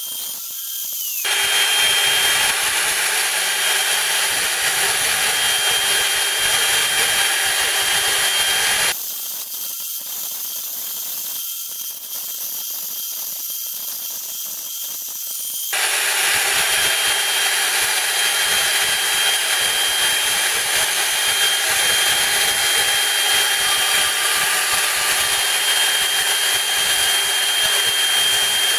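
CNC router spindle running with a steady high whine while cutting plastic leveling-foot discs at a slow, light feed. The cutting noise steps up about a second in, drops back for several seconds in the middle, then rises again.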